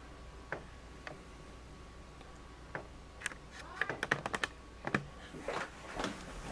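Light, sharp clicks and taps: a few single clicks, then a quick run of about half a dozen clicks in the middle, like keys or buttons being pressed.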